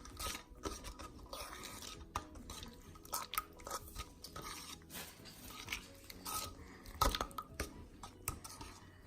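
Sticky Elmer's glue slime being mixed in a container after the activator has gone in: irregular soft wet squelches and small clicks, with one louder knock about seven seconds in. The slime is still sticky, not yet fully set.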